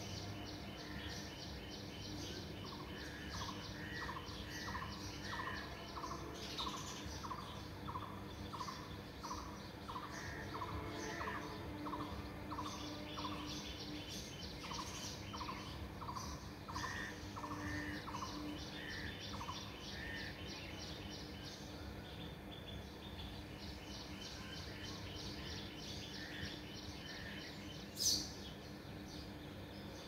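Birds chirping in the background: a short call repeated about twice a second over faster high trills, with a steady low hum underneath. One short sharp click near the end.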